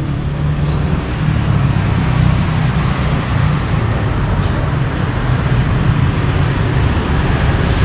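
Steady drone of a motor vehicle engine running, over a haze of road traffic noise.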